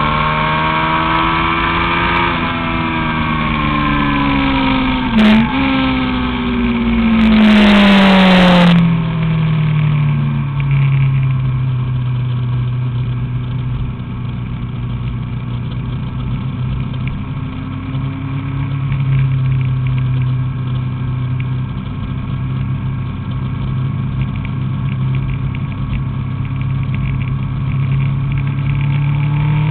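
Honda CBR1000RR inline-four engine on board: the revs fall from high rpm over the first several seconds, with a brief click and dip in the note about five seconds in and a burst of rushing noise near eight seconds. It then runs at a steady, lower pitch through the corners, and the revs start to climb again at the very end.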